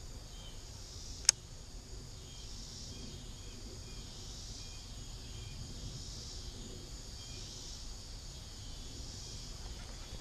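Steady insect chorus, with one sharp click about a second in.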